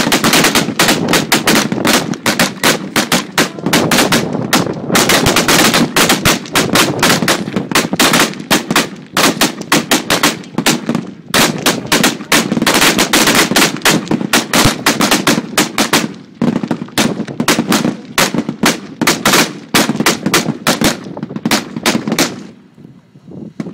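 Gunfire from many weapons firing at once along a range firing line, some of them shooting tracer rounds. The shots are rapid and overlapping, with brief lulls, and they stop about a second before the end.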